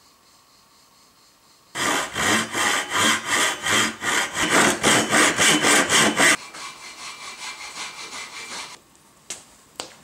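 Double-edged Japanese pull saw cutting a small clamped piece of pine pallet wood, starting about two seconds in with quick strokes about three a second, then a couple of seconds of lighter, quieter strokes. Two sharp clicks follow near the end.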